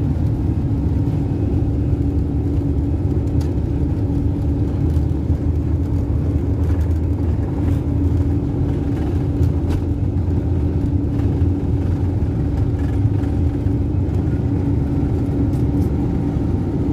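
Airliner cabin noise during takeoff: the jet engines run at high power, making a loud, steady low rumble with a steady hum above it.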